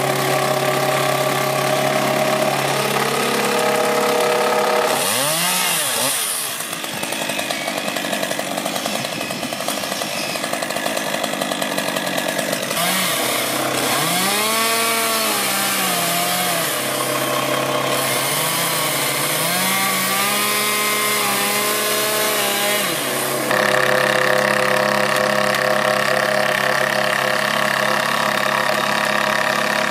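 Stihl two-stroke chainsaw running at idle, revved up three times, its pitch rising to full speed and falling back each time.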